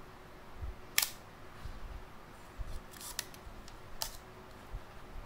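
Copal leaf shutter of a Yashicaflex C twin-lens reflex camera clicking as it is worked by hand: one sharp click about a second in, a cluster of smaller clicks around three seconds, and another click about four seconds in.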